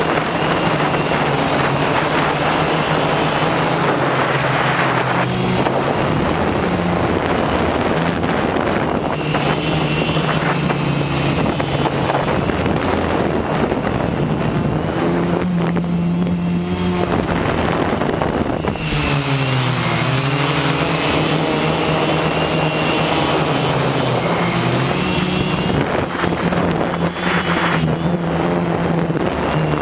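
Multirotor drone's electric motors and propellers buzzing, heard from a camera mounted on the drone, over a steady rushing noise. The motor pitch shifts with the throttle, dipping and rising again about two-thirds of the way through.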